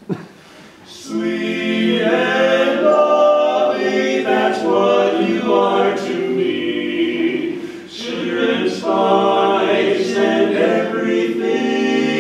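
Male barbershop quartet singing a cappella in close four-part harmony. The singing comes in about a second in and breaks off briefly about two-thirds of the way through.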